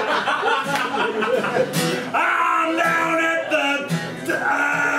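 Acoustic guitar strummed in a steady rhythm as song accompaniment, with a voice singing held notes over it from about two seconds in.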